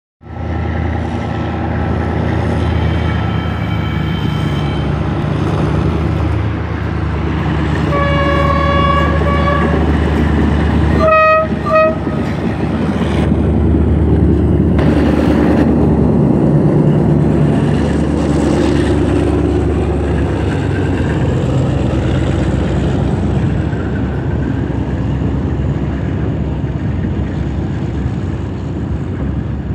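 Two TCDD DE 24000-class diesel-electric locomotives hauling a freight train pass close by, their engines running loud. The horn sounds a long blast about eight seconds in and two short blasts around eleven seconds. The wagons then roll past as the engine sound slowly eases off.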